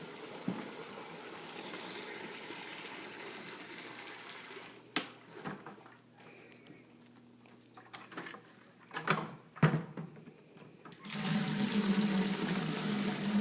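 Water running from a hose, stopping about five seconds in, with a few knocks and clatters, then running again, louder, near the end.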